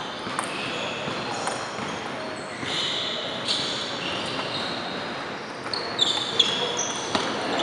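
Table tennis ball clicking off the table and bats as a serve and a short rally are played, the clicks coming quicker in the second half. Short high squeaks of sneakers on the hardwood gym floor, over the hum of a large hall.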